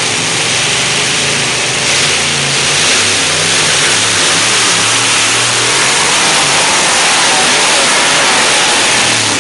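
Multi-engine pulling tractor's Hemi V8 engines at full throttle, running loud and steady as it drags the weight sled, a little louder from about two seconds in. Only three of its four Hemi V8s are pulling because one has died.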